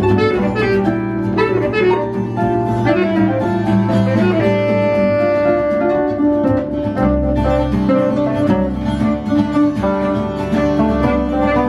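Live acoustic chamber music: acoustic guitar and harp plucking together, with a saxophone playing a melody that includes a long held note about four seconds in.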